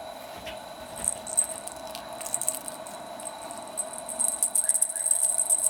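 Quick, dry scratching and rustling of a kitten's claws and a wand toy on a quilted bedspread as the kitten pounces and paws at the toy, getting busier and louder about four seconds in.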